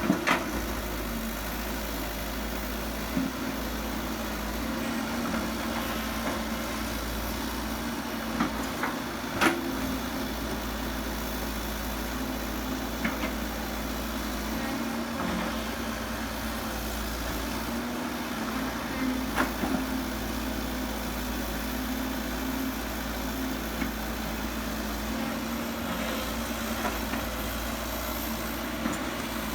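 Diesel engine of heavy earthmoving machinery running steadily, with a few sharp knocks scattered through, the loudest about nine and a half seconds in.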